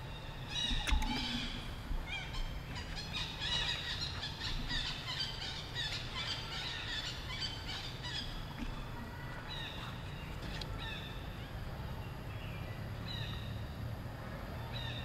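Animal calls: many short, high chirps and squeaks, thickest in the first half and sparser later, over a low steady rumble.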